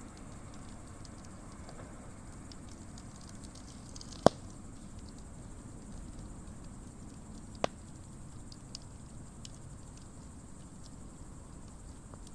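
Wood campfire crackling, with scattered faint ticks and two sharp pops, the louder about four seconds in and another about seven and a half seconds in.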